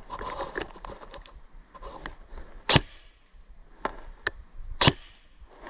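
Four sharp cracks at irregular intervals, the first and last the loudest, over a faint steady high whine.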